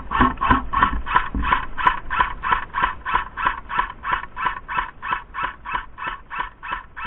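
A pulsing alarm: harsh squawks repeating evenly, about three a second, steady in pitch.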